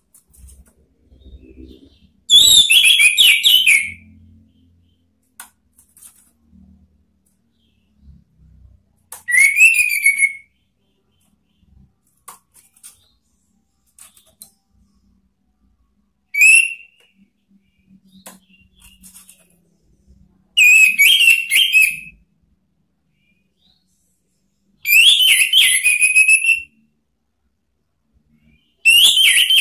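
Orange-headed thrush singing loud whistled phrases, six of them a few seconds apart, each lasting a second or so and falling and warbling in pitch. It is the bold 'ngeplong' song used to call out and provoke rival birds.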